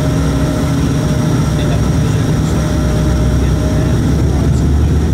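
Bombardier Dash 8 Q400's Pratt & Whitney PW150A turboprop engine and propeller running steadily, heard from inside the cabin as a loud, deep hum of several steady tones.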